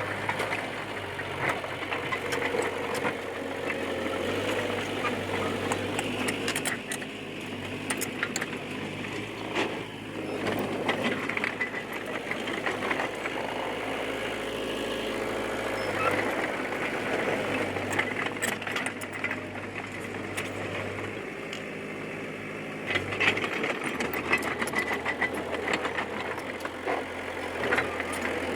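Diesel engine of a Komatsu D20P bulldozer running under changing load, with frequent metallic clanks and rattles from the machine as it works.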